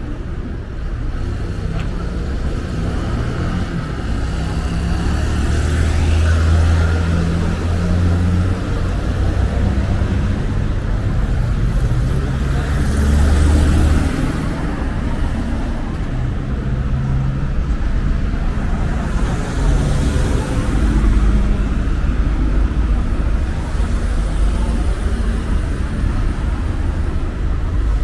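Street traffic: cars driving past one after another over a steady city hum, their low engine drone swelling and fading as each one passes.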